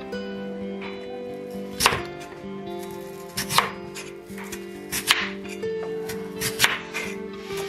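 Crinkle-cut knife slicing raw peeled potatoes on a wooden cutting board: several sharp cuts, each the blade going through the potato and knocking on the board. The first comes about two seconds in, and they come a little faster near the end.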